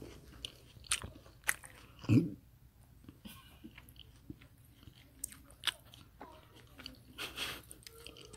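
A person chewing food close to a phone's microphone, with small scattered crunches and mouth clicks. A short low sound about two seconds in is the loudest moment.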